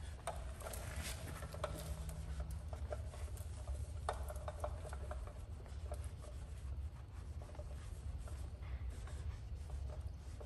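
Microfiber towel rubbing over a car wheel, wiping off flashed ceramic coating, with scattered light scuffs and ticks over a steady low hum.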